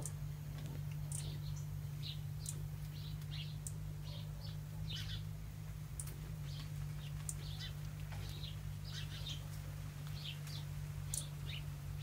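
Small birds chirping: many short, high calls and chips scattered irregularly, over a steady low hum.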